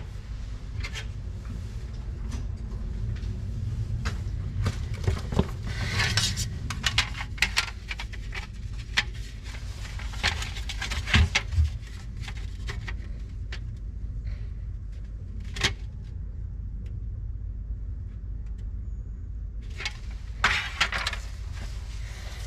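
Small hard objects being handled: scattered clicks, knocks and rattles, irregular and in clusters, over a steady low hum.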